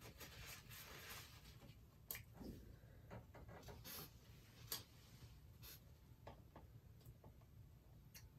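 Faint rustle of a paper napkin rubbed against the mouth, then quiet sips through a plastic straw from a fast-food cup, with a few sharp clicks along the way.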